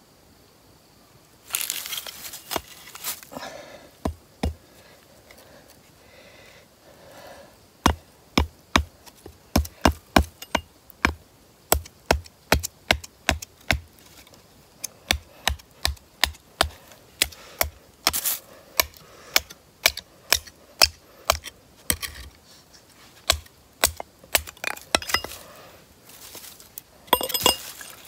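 Small hatchet chopping a short stick of dry wood held upright, in sharp repeated strikes about twice a second with short pauses between runs. It is splitting and processing kindling for a campfire. A rustle comes first, about two seconds in.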